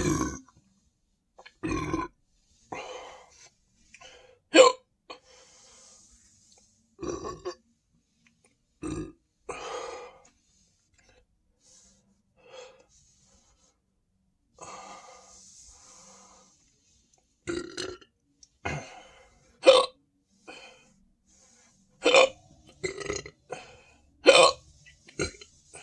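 A person's repeated burps and hiccups from drinking carbonated Sprite: a dozen or more short separate bursts every second or two, a few of them much louder and sharper than the rest.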